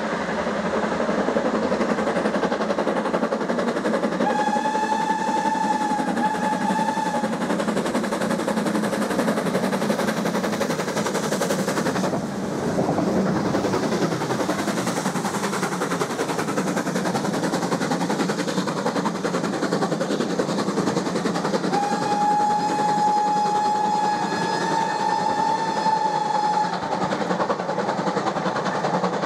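BR Standard Class 9F 2-10-0 steam locomotive 92134 and its coaches passing, a steady loud rush of locomotive and train noise. The steam whistle sounds twice in quick succession about five seconds in, then gives one longer blast of about five seconds near the end.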